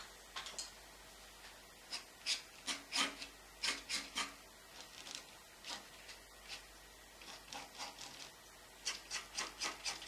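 Palette knife scraping and dabbing oil paint on the painting surface in a series of short strokes, thickest in a run about two seconds in and again near the end.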